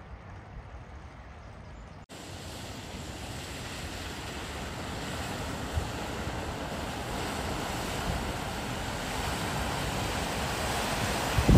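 A car ploughing through deep floodwater at a ford, the rushing splash of its bow wave growing steadily louder as it comes closer, with wind buffeting the microphone and a few low bumps near the end.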